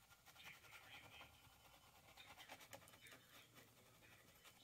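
Near silence with faint, short scratching strokes of a small paintbrush dabbing paint onto canvas.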